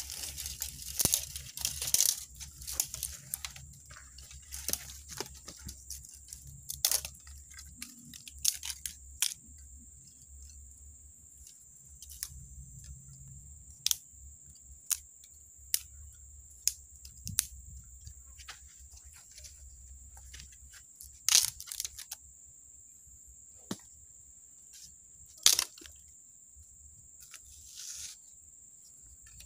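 Irregular crunching and crackling, as of dry leaf litter and twigs being trodden or pushed through, thicker early on and sparser later, over a steady high insect drone.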